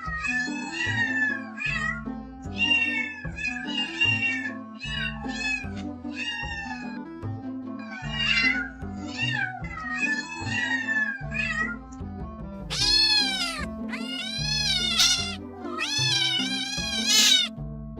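Domestic cat meowing over background music: a quick run of short meows, then several longer, louder drawn-out meows in the last third.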